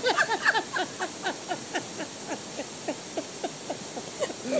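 Two people laughing hard together: a quick run of short, falling 'ha' sounds at several pitches.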